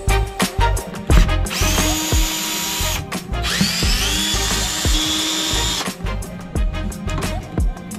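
Cordless power driver backing out panel mounting screws: its motor whines up in pitch and holds, twice, the second run longer. Background music with a steady beat plays throughout.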